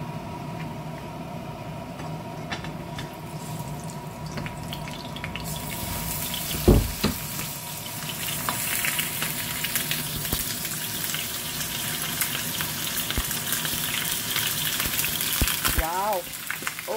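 Beef short ribs searing in hot oil in a frying pan: a low steady hiss turns into loud sizzling and crackling about five seconds in as the meat goes in, with one sharp knock a second later. The oil spatters heavily because the meat is still wet.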